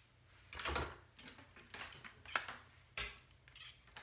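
Hands working through hair and handling a styling product close to the microphone: a series of short rustles with a few light knocks.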